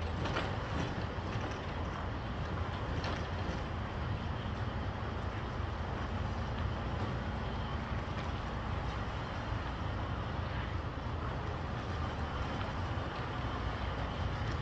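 Semi-truck's diesel engine running at low revs as it slowly backs a trailer, a steady low rumble.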